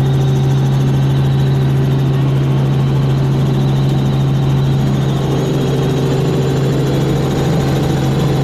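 Helicopter running steadily: a loud, unbroken drone of engine and rotor with a strong low hum.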